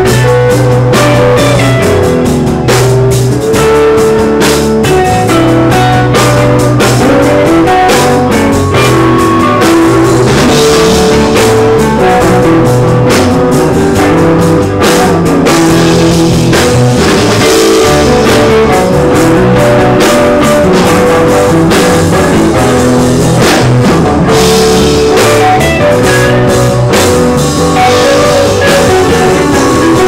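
Rock band playing loudly, with guitar and drum kit.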